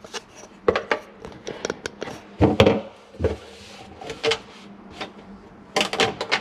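Black ABS plastic drain fittings knocking and clicking against each other as a P-trap is worked into position on the slip joints. There are a handful of short, sharp knocks, the loudest about two and a half seconds in, and a quick cluster near the end.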